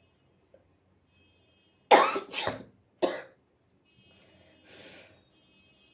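A person with a head cold sneezing: two loud, sudden sneezes close together about two seconds in, then a shorter one about a second later, and a faint breathy sniff near the end. The sneezes bring mucus out of the nose.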